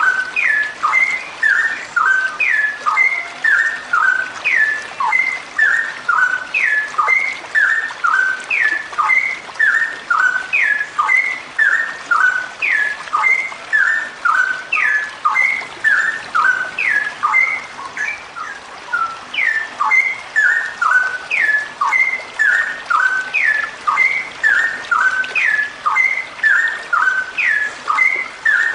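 Female straw-headed bulbul (cucak rowo) calling in a long unbroken series of short, sharply falling notes, about two a second: the rapid repeated call that bird keepers call 'ropelan'.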